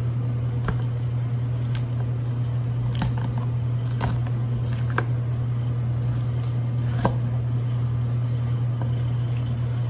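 A chef knife working through a roast duck's wing joint and carcass, with about six sharp knocks of the blade against the wooden cutting board, roughly a second apart. Under them runs a loud, steady low hum of kitchen machinery.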